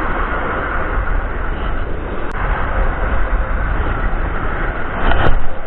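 Strong, gusty wind of about 25 to 30 mph rumbling and buffeting on the microphone, with a brief louder surge about five seconds in.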